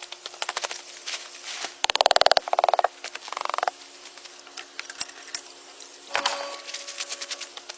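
Frogs calling in a rain forest: three rapid pulsed croaking calls about two to four seconds in, the last one higher. They sound over a steady high-pitched whine and scattered small clicks.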